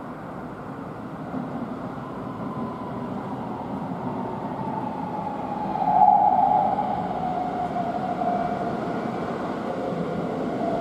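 A Keihan 13000-series electric commuter train pulls into the platform and slows to stop. The rumble of its wheels on the rails grows louder, and a whine from its motors falls slowly in pitch as the train slows. The sound is loudest about six seconds in.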